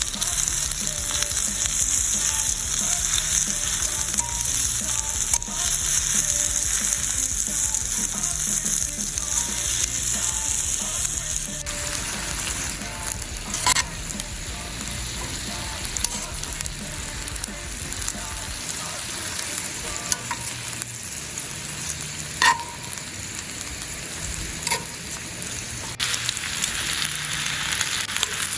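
Bacon fried rice sizzling steadily in a pan as it is stirred, with a few sharp clicks of the utensil against the pan in the second half.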